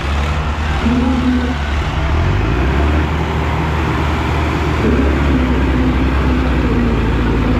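Diesel tractor engines running hard under load in a tractor tug-of-war, a steady, loud low drone with a fainter tone above it that comes and goes and shifts slightly in pitch.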